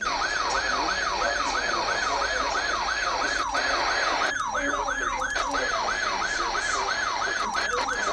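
Electronic siren sounding a fast, repeating sweep: each sweep falls in pitch, then jumps back up, about three times a second. It starts abruptly and runs on steadily, with a few faint clicks in the middle.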